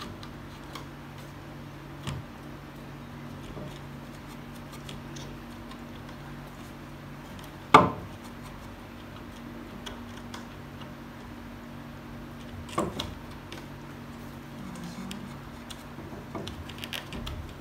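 Plywood wall shelf being handled and pressed into place against the wall: light taps and clicks of the wood, a sharp knock about eight seconds in and a smaller one about five seconds later, over a steady low hum.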